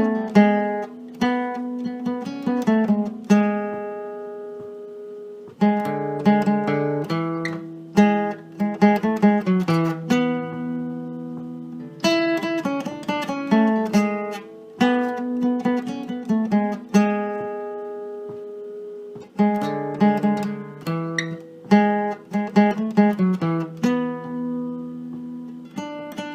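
Instrumental music on a plucked acoustic string instrument: picked notes and chords in a melodic phrase that repeats about every six to seven seconds, with no singing.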